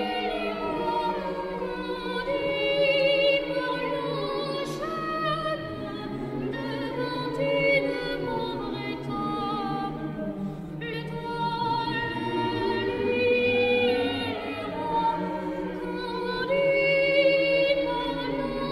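Boys' choir singing a French Christmas carol in long sustained phrases, with a short break between phrases about ten seconds in.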